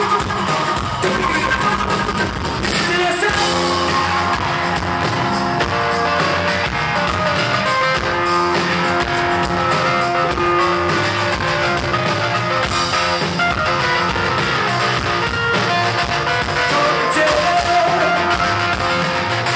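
Rock music: an instrumental passage of a song, with guitar carrying the melody.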